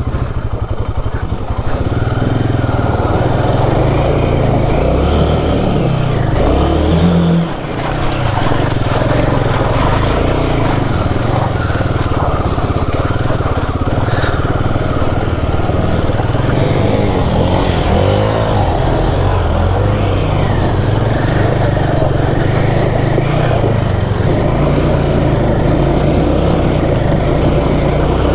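Royal Enfield Himalayan 450's single-cylinder engine running under load as the motorcycle is ridden off-road, with a brief dip in the engine note about seven seconds in.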